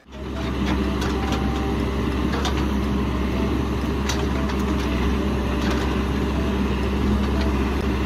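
Caterpillar 416F backhoe loader's diesel engine running steadily while it digs, with a low hum and occasional light clicks.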